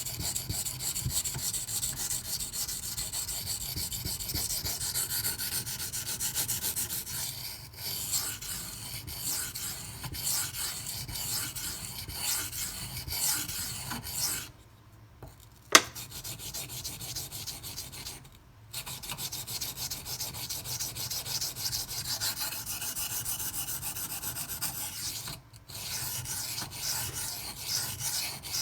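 Steel knife blade (154CM) being stroked back and forth on a silicon carbide whetstone, a continuous rasping rub that grinds out the last of the edge chips. It pauses briefly three times, with a single sharp click about halfway through.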